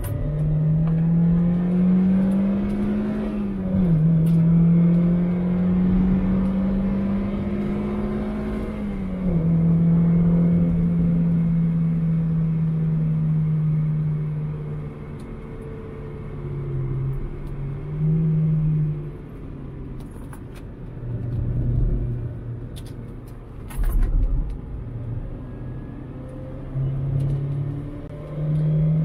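2001 Mazda MX-5 1.8's four-cylinder engine driven hard on track: the pitch climbs and drops sharply at upshifts about three and a half and nine seconds in, then runs steadier and lower, falling away and picking up again with a few short loud bumps in the last third.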